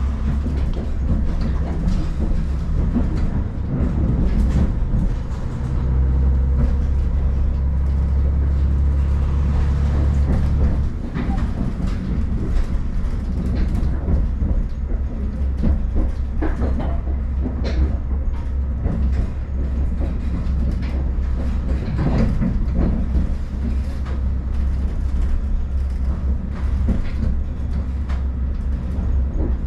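JNR KiHa 40 diesel railcar running, heard from inside the car: a steady low engine and wheel rumble with rail-joint clicks and knocks. The engine note drops away about eleven seconds in, as if the throttle were shut to coast.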